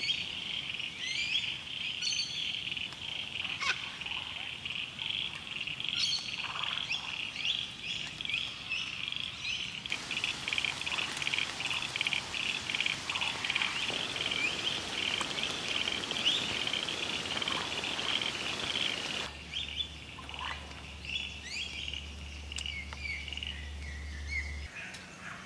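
Frogs calling in a dense, steady, pulsing chorus, with a superb lyrebird's loud, varied song notes breaking in over it. In the middle stretch a hiss of falling rain is added, and it stops abruptly.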